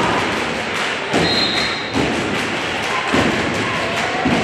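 A basketball bouncing on a gym floor, about four thuds roughly a second apart, over a steady crowd murmur. A brief high squeak sounds about a second in.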